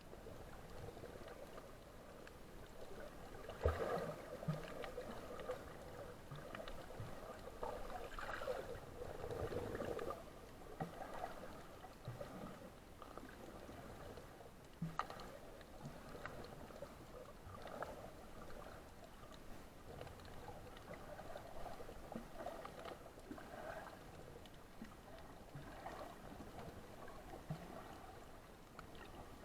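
Water sloshing and gurgling, uneven and restless, with a few small knocks scattered through it; the loudest knock comes about four seconds in.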